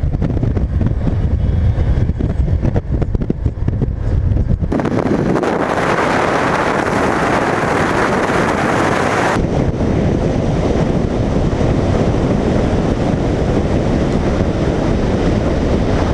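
Wind buffeting and rushing over a camera mounted outside a van driving at road speed, with road noise underneath. The sound changes abruptly about five seconds in to a brighter, hissier rush, and back to a duller rumble about nine seconds in.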